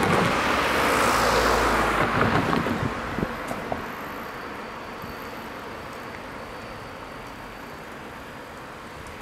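A car driving away over the level crossing, its tyre and road noise fading over the first three seconds, with a couple of light knocks near the end of that. A steady low hum of distant traffic follows.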